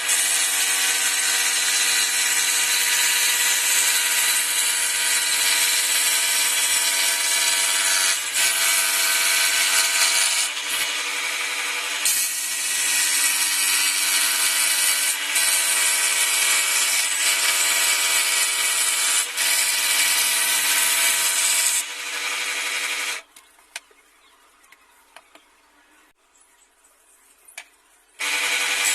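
Feram electric scroll saw running and cutting wood: a steady hum over hiss. It stops about 23 seconds in and starts again near the end.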